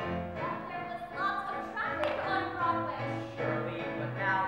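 A stage song: a voice singing a melody over instrumental accompaniment, with a bass line that moves from one held low note to the next.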